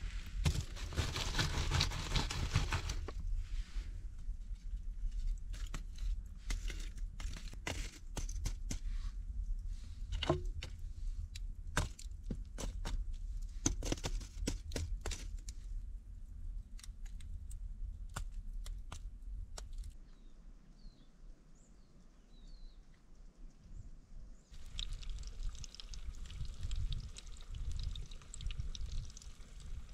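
Eggs and tomatoes frying in a pan over wood embers, sizzling, with many sharp clicks from crackling embers and the pan scraping on the hearth. It goes quieter about two-thirds of the way in, with a few faint bird chirps, before the sizzling returns near the end.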